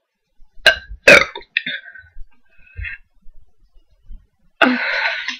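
Two short sharp sounds about a second in, then one long, loud burp near the end from a woman who has been gulping Coke, the gas of the fizzy drink coming back up.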